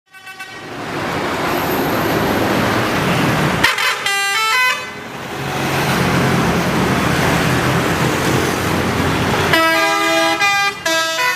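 Indonesian 'telolet' multi-tone bus horns playing short stepped tunes, once about four seconds in and again near the end. Between the tunes the buses' engines and traffic make a loud steady noise.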